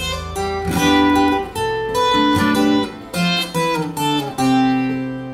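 Background music: an acoustic guitar playing a slow melody of held notes.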